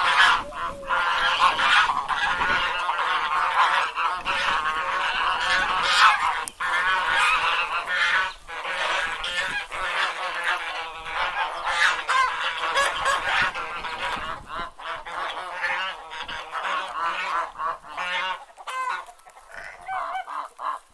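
A flock of domestic geese honking, many calls overlapping in a continuous chorus that thins out to fewer, separate honks in the last few seconds.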